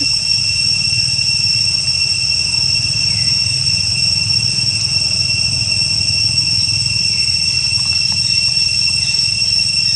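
A steady high-pitched whine over a steady low rumble, both unchanging.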